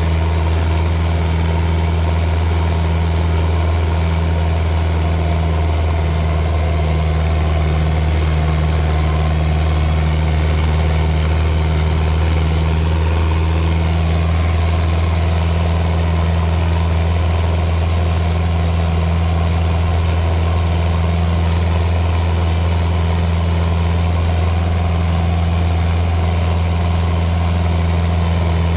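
Turbocharged diesel engine of a Fiat New Holland L85 tractor idling steadily, a constant low hum with no change in speed.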